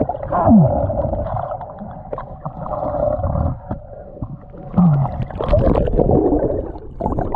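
Muffled water sloshing and bubbling, as heard by a camera underwater, with a dense rumble and two short falling tones, one near the start and one about five seconds in.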